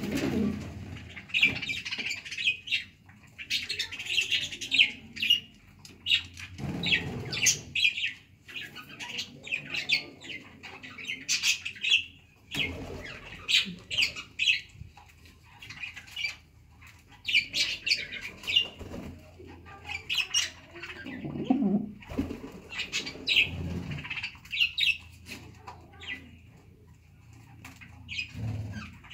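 Pigeons' wings flapping and fluttering in repeated short flurries of quick strokes throughout.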